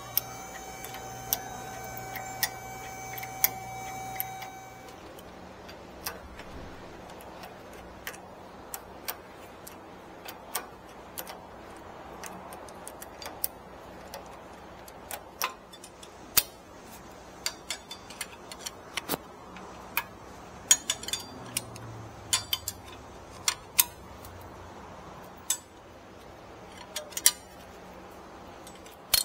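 Irregular sharp metallic clicks and taps of hand tools on metal parts as they are fitted. A steady high hum stops about four seconds in.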